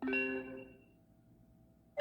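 Cell phone notification tone: a short chime of a few bright notes that fades out within about a second.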